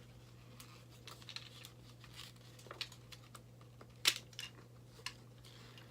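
Plastic parts of a Transformers G1 Hot Rod reissue figure being worked by hand, with scattered small clicks and creaks and one sharper snap about four seconds in, as tightly locked-in parts are pulled back.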